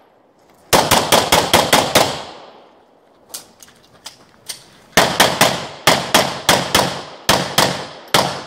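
Handgun fired in rapid strings: about six quick shots, a pause with a few faint ticks, then about fifteen more shots in fast succession, each a sharp crack.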